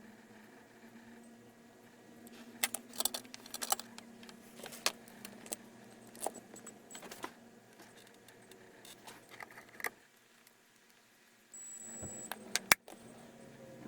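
Light metallic clicks and clatter from tools and small parts being handled on a workbench, in scattered groups with a couple of sharper snaps near the end, over a faint steady hum.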